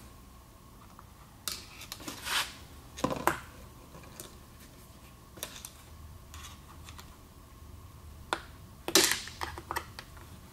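Screwdriver prying at a large snap ring inside a 5HP24 automatic transmission's A clutch drum: scattered metal clicks and short scrapes, with the loudest cluster about nine seconds in.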